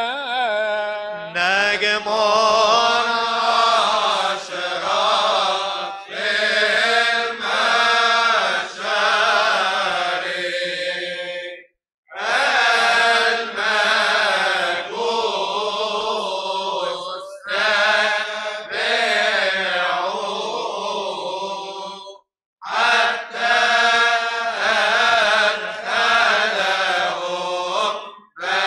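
Coptic Orthodox Christmas hymn chanted by deacons' voices in long phrases of drawn-out, wavering notes, with short breaks about 12 and 22 seconds in.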